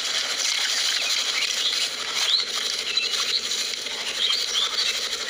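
A freshly landed fish flapping and patting against grass, over a steady hiss with a few short high chirps.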